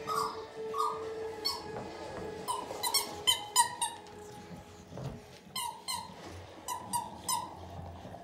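Squeaky rubber dog toys being chewed by American bully dogs: many short, high squeaks in quick runs, with a short lull about halfway through.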